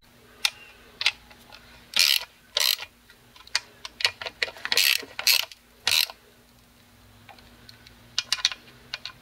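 Socket ratchet on a long extension clicking in short bursts of ratcheting strokes as it works a bolt in the engine bay of a Subaru WRX.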